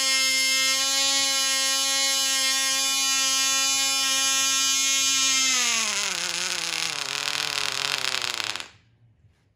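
A 0.1cc nano model diesel engine, a two-stroke, running steadily at high speed with a high-pitched tone. About five and a half seconds in it slows, its pitch falling and the sound turning rough, and it cuts out about a second before the end.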